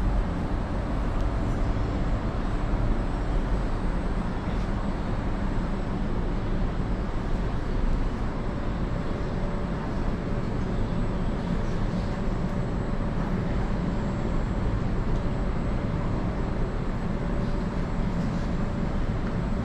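Steady low rumble and hiss of a railway platform with trains about, with a faint steady hum and no sudden events.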